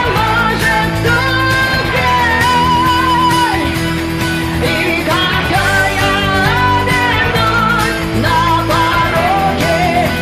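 Rock song playing: a sung melody with wavering held notes over guitar and a steady bass line.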